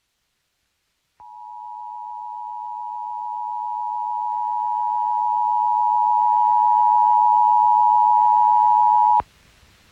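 Emergency Alert System attention signal: two close pitches sounding together as one steady tone. It starts about a second in, grows louder for about eight seconds and cuts off abruptly near the end. It heralds a flash flood warning.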